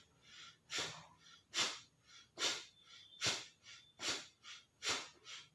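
A man doing rapid yogic cleansing breathing (Virechan Gati): six sharp, forceful exhalations about 0.8 seconds apart, each followed by a light, quieter inhale. The exhale is the stressed part of the breath.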